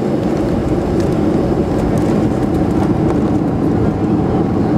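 Steady low rumble inside the cabin of a Boeing 737-500 rolling on the ground after landing: its CFM56 engines and the airframe, with a few faint rattles.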